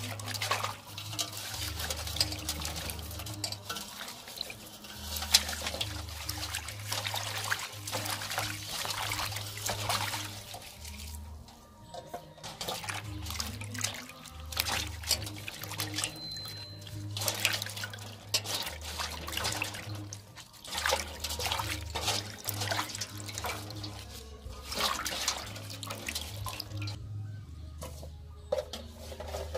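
Water splashing and sloshing in a metal basin as hands rub and rinse leaves and lemongrass in it, in irregular bursts, over quiet background music.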